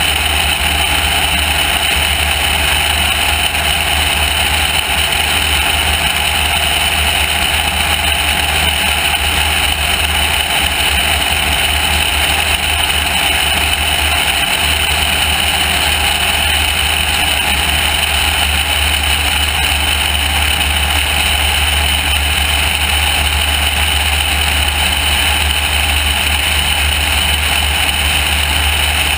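Light airplane in steady cruise: a constant low engine-and-propeller drone under loud wind noise rushing over an outside-mounted camera. It stays even, with no change in power.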